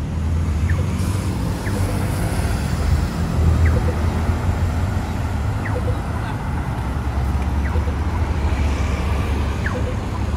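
City street traffic: a steady low rumble of passing road vehicles, with faint short chirps every second or two.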